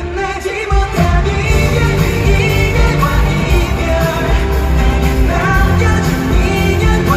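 Pop song with a male lead vocal singing over full band backing.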